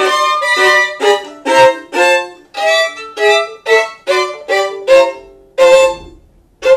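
Solo violin playing a phrase of short, separate bowed notes, two to three a second, each note accented and then fading, with a brief pause near the end before the playing resumes.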